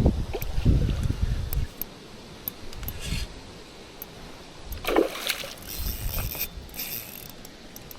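Wind buffeting the microphone in gusts for the first couple of seconds. Then water sloshing with small scattered clicks, and a short splash about five seconds in.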